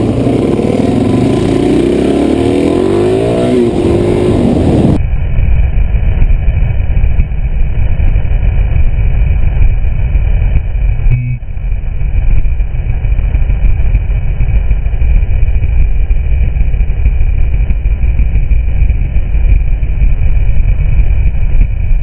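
Suzuki DR-Z400SM single-cylinder engine revving up as the bike accelerates. About five seconds in, the sound turns abruptly dull to a steady low rumble of engine and wind while riding.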